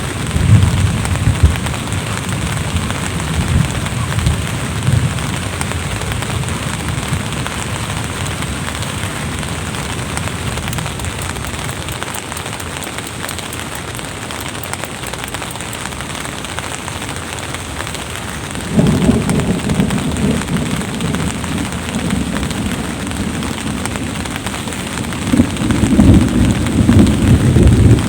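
Steady rain falling, with rolling thunder: low rumbles swell at the start, again about two-thirds through, and near the end.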